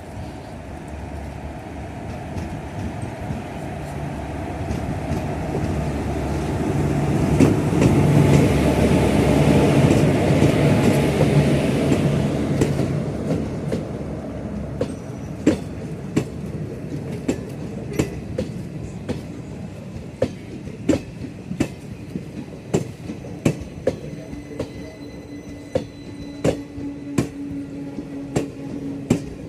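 An Indian express train hauled by a WAP-4 electric locomotive passing close by. The locomotive's rumble builds to a loud peak about a third of the way in and fades. Then the coaches go by, their wheels clacking over the rail joints in a steady rhythm.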